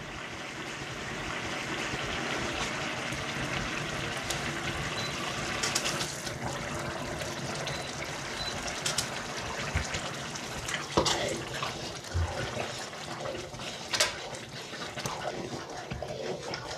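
A large aluminium pot of zacuscă vegetable sauce bubbling and sizzling on the stove: a steady, watery hiss. A few sharp clicks and knocks come through it as the eggplant mixture is scraped from a bowl into the pot.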